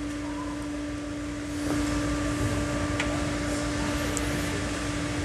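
A steady machine hum holding one constant low tone, with a few faint light clicks from parts being handled.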